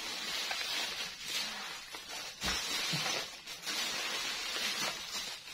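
Black plastic bubble wrap rustling and crinkling as hands handle and unroll it, in uneven swells.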